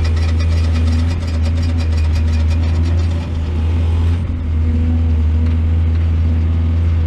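Heavy engine of a mining excavator running steadily, with a rapid clatter of clicks and knocks over it that stops about four seconds in.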